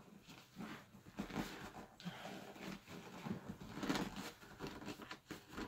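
Eco-leather seat cover being stretched and tugged over an ATV seat's plastic pan by hand: intermittent rustling and scraping, loudest about four seconds in.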